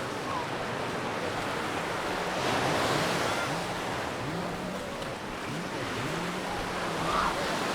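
Mediterranean sea waves washing onto a sandy beach, with the surf swelling as a wave breaks about three seconds in and again near the end.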